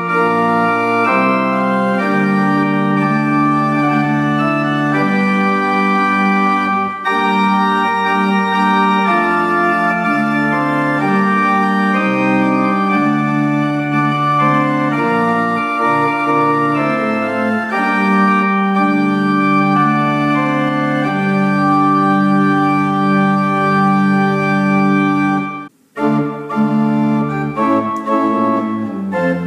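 English pipe organ, with parts possibly as early as 1780, playing sustained chords that change every second or two. Near the end the sound breaks off for a moment, then resumes with shorter notes.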